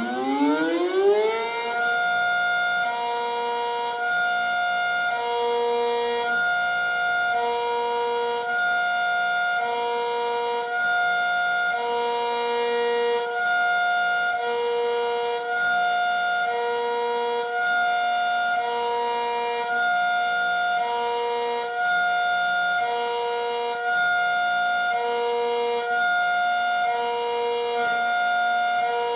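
ACA Superbanshee electronic outdoor warning siren sounding its Hi-Lo test signal. Its tone sweeps up in the first second or two, then settles into two pitches alternating evenly, each held about three-quarters of a second.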